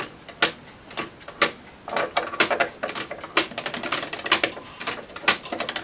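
3D-printed Galileo escapement clock ticking about once a second. From about two seconds in, rapid clicking joins it as its 3D-printed spring is wound with a key.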